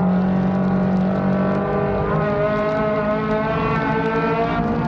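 Four-cylinder race car's engine running under load, heard from inside the cockpit, its pitch edging up over the last couple of seconds.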